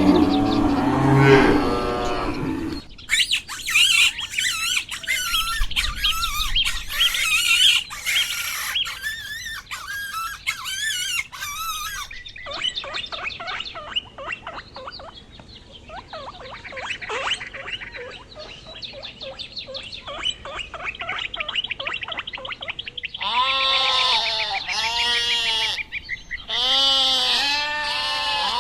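A cow mooing, then a long stretch of high, rapid, repeated chirps and squawks from small animals or birds, then sheep bleating several times near the end.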